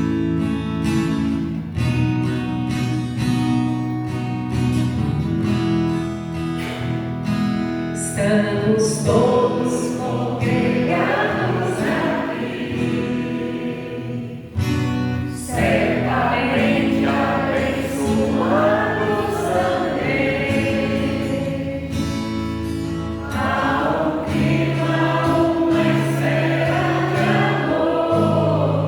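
Worship music: guitar chords alone at first, then voices singing a gospel hymn over them from about eight seconds in.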